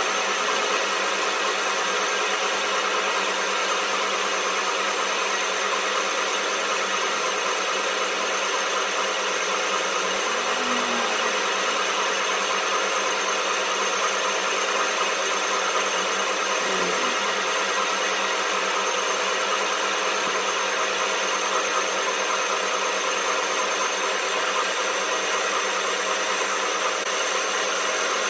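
A workshop machine running steadily, giving a constant even noise with no breaks or changes.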